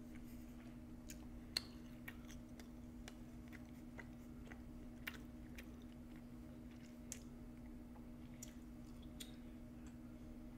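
Close-miked chewing of a mouthful of chicken, faint, with scattered soft wet mouth clicks; a steady low hum runs underneath.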